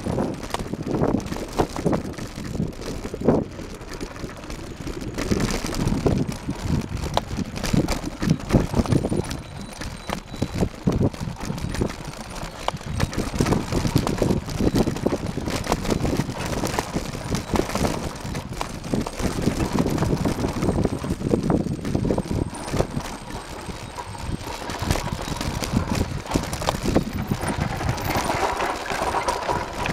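Mountain bike riding down a rough dirt trail: tyres running over loose soil and stones, with constant irregular knocks and rattles from the bumps.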